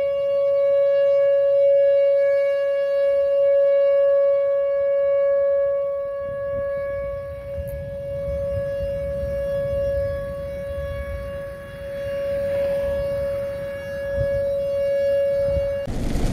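Outdoor tornado warning siren sounding a tornado warning: one steady, unchanging note that swells and fades in loudness, cut off abruptly near the end.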